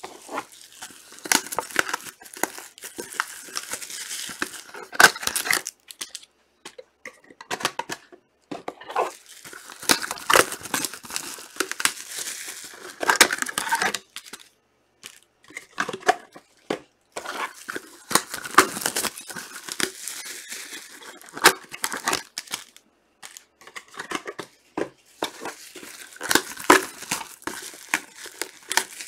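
Trading-card packs being torn open by hand: irregular ripping and crinkling of the wrappers, with sharp clicks and short pauses between rips.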